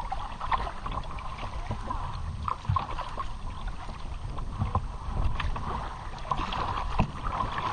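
Sea kayak being paddled through choppy water: water splashing and slapping against the hull in irregular small splashes over a low rumble.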